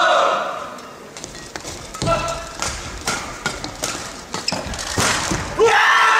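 Fast badminton doubles rally: a quick series of sharp racket hits on the shuttlecock, with sneaker squeaks on the court and a player's shout at the start. Near the end loud shouting and cheering break out as the point is won.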